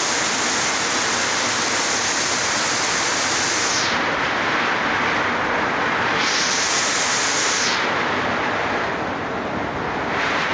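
Heavy rain falling steadily on corrugated metal roof sheets, a dense, even hiss.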